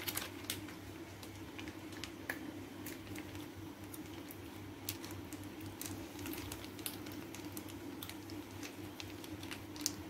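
Scattered light clicks and crackles of a plastic sachet being squeezed by hand to press out paste, over a steady low hum.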